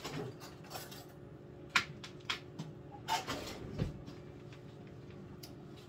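Kitchen drawer being rummaged for utensils, with a few sharp clicks and clinks of metal and a duller knock, the loudest click just under two seconds in.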